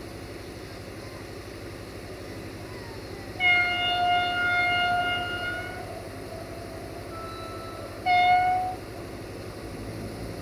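Diesel locomotive horn sounding as the train approaches: one long steady blast of about two seconds, then a short blast a couple of seconds later.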